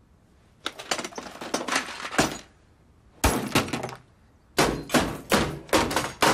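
A smartphone being smashed on a wooden table with repeated hard blows, its glass screen cracking: a flurry of strikes, one heavy blow, then a run of about six quick blows.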